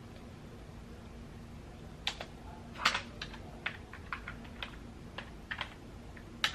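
Typing on a computer keyboard as a password is entered: about two seconds of quiet, then a run of irregular keystrokes.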